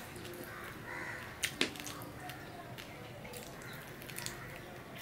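Eating by hand: fingers mixing rice and curry on a steel plate, with two sharp clicks about a second and a half in, then biting into a piece of chicken and chewing.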